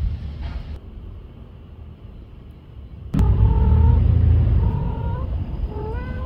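A cat meows three times in short, rising calls in the second half, over a low rumble that jumps up with a sudden knock about three seconds in.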